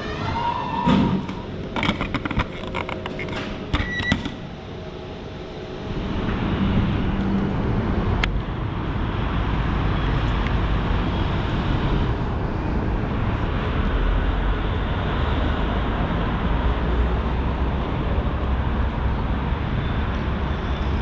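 A vending machine's delivery mechanism clicking and knocking as a paper cup drops into the pickup tray, over a steady machine hum. About six seconds in it gives way to a steady low rumble of outdoor city background noise.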